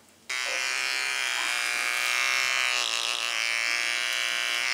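Electric hair clipper switching on suddenly about a quarter second in and running with a steady buzz as it clips a dog's matted fur.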